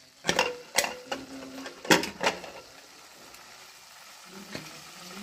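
Pressure cooker lid being unlocked and lifted off: several sharp metal clanks and scrapes in the first two and a half seconds, then quieter.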